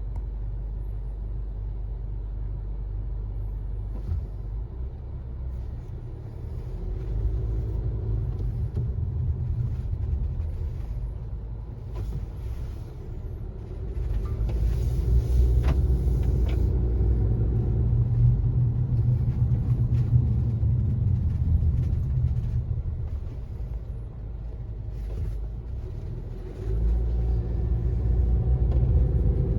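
Low humming drone of a 2018 Honda CR-V being driven, heard from inside the cabin, growing louder about halfway through and again near the end. It is a persistent noise since new, most noticeable between 25 and 50 mph, which the owner suspects may be a bad hub assembly or bad tyres.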